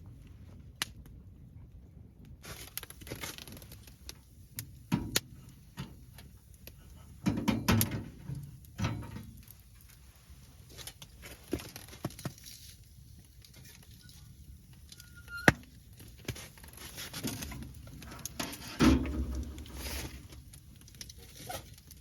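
Irregular knocks, clicks and rustling of objects being handled, with heavier thuds a third of the way in and again near the end, and one sharp click about two-thirds of the way through.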